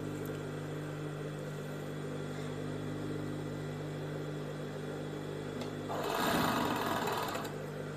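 Four-thread overlock (serger) sewing machine running steadily with an even motor hum as the piping and neckline are fed through it. About six seconds in a louder, noisier stretch rises over the hum for over a second.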